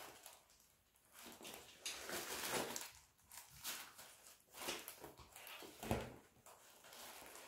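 Rustling and handling noises as a quilted leather handbag is opened and a hand feels around inside it, with a soft knock about six seconds in.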